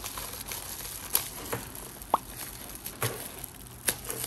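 Plastic bubble wrap crinkling and rustling as it is peeled and pulled off a boxed tripod by hand, with a few sharp clicks, about 1, 2 and 4 seconds in.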